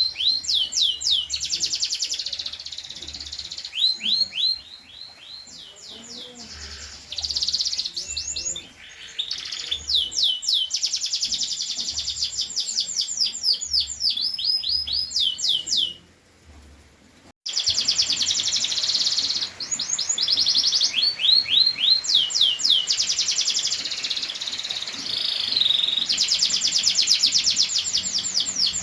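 Domestic canary singing: fast rolling trills of rapidly repeated falling notes, one phrase after another. The song stops for about a second past the middle, then carries on.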